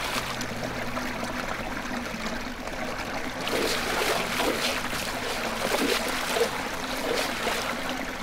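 Pond water splashing and sloshing against the base of a small wooden dock as a lure is worked close to the surface, a continuous irregular trickling and slapping.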